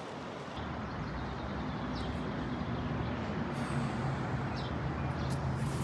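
A steady rushing noise with a low, even engine-like hum that sets in about half a second in and holds, like a vehicle engine running nearby.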